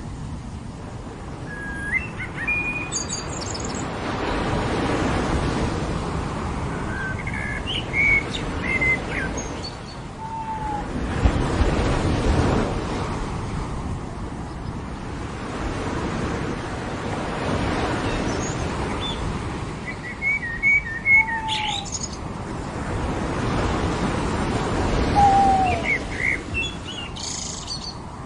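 Ocean surf washing in and out in slow swells, with birds chirping in scattered short phrases over it, and a few lower falling call notes.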